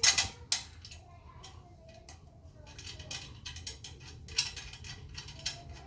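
Metal parts and hand tools clinking and knocking as hardware is fitted, with a few sharp clanks at the start and scattered lighter clicks after.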